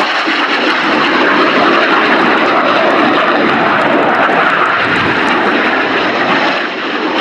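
BAE Hawk T1 jet's Adour turbofan engine, loud and steady as the jet flies past, dipping briefly near the end.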